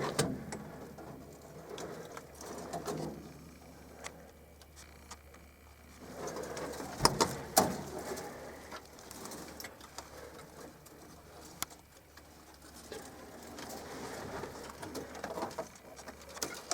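Pigeons cooing in soft swells, with a few sharp knocks about seven seconds in.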